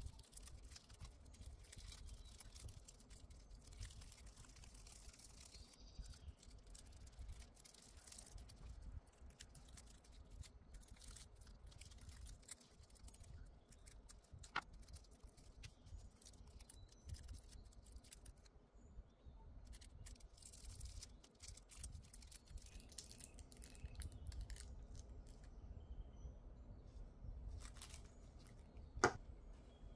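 Faint rustling and scattered small clicks of gloved hands rubbing nail transfer foil onto false nail tips and peeling it off, with one sharper click about a second before the end.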